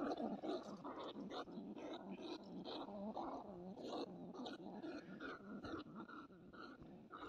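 Bandicoot rat caught in a trap, making a rapid series of short calls that rise and fall in pitch.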